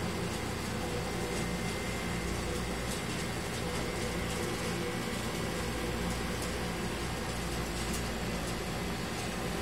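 Aquarium pump running: a steady low hum under an even hiss.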